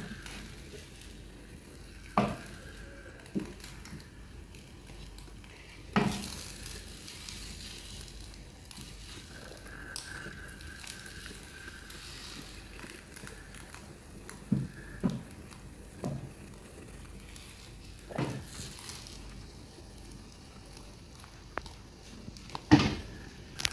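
Egg frying in a pan with a steady, faint sizzle, while a spatula knocks and scrapes against the pan every few seconds.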